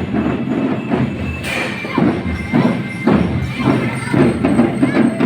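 Loud music with a steady, driving percussive beat.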